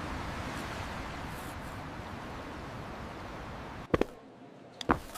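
A steady hiss of background noise that drops away about four seconds in. Two brief, sharp pitched sounds follow, about a second apart.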